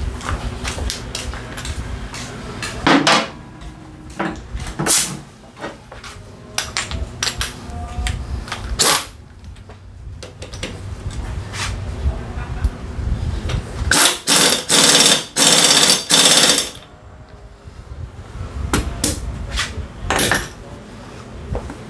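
Pneumatic impact wrench on a Haojue USR125 scooter's rear axle nut, rattling in a few short bursts and then in a longer run of about three seconds past the middle. Metal tools clink and clank between the bursts.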